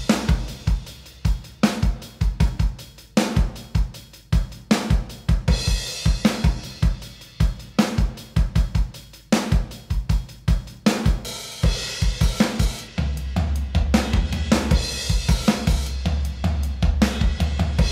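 Drum kit playing a steady groove of kick, snare, hi-hat and cymbals through a chamber reverb plugin, the Softube Atlantis Dual Chambers. Its mechanical damping setting is being changed, which tones down the reverb's density and mutes some of its top end. A sustained low bass tone joins about two-thirds of the way through.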